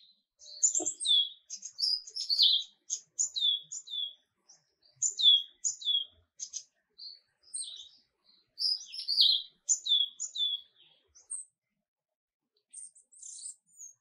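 Small birds chirping: a busy run of short, high chirps and down-slurred notes. They break off briefly about eleven seconds in and start again near the end.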